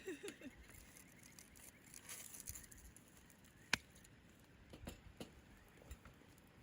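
Faint scattered clicks and taps of small objects being handled, with one sharp click about four seconds in, over a quiet steady background hiss.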